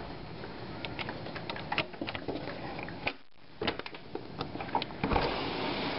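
Heavy rain outside a window: a steady hiss with irregular sharp taps of drops hitting the screen and glass. The sound cuts out briefly a little past halfway, and the rain is much louder from about five seconds in.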